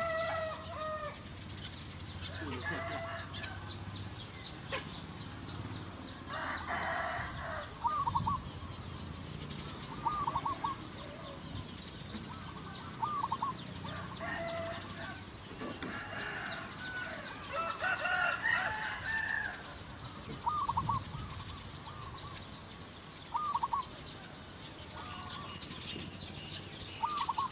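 Domestic chickens clucking and a rooster crowing, with small birds chirping throughout. A short call repeats every two to three seconds.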